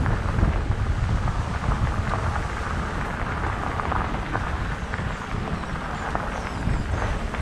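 Electric mountain bike rolling over a gravel dirt track: tyre noise and scattered clicks and knocks from the bike, under a heavy low rumble of wind on the microphone.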